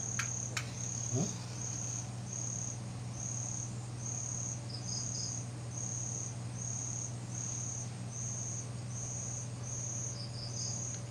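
Night insects calling: a high-pitched chirp that repeats evenly, a little more than once a second, over a steady low hum. There are a few sharp clicks right at the start.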